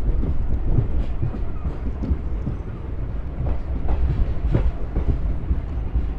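Passenger train moving off from a station, a steady low rumble from the coaches with wheels clacking over the rails, and a few sharper clanks between about three and a half and four and a half seconds in.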